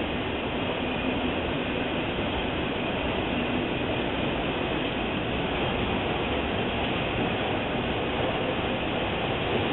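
Freight train of autorack cars rolling past close by: a steady, unbroken noise of steel wheels running on the rails.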